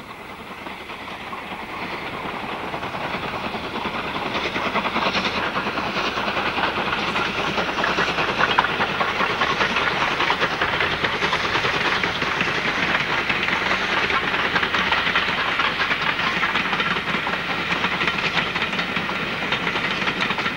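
RENFE 241F 4-8-2 steam locomotive working hard with a passenger train, its rapid exhaust beats mixed with the clatter of the train on the rails. It grows louder over the first few seconds, then runs on steadily.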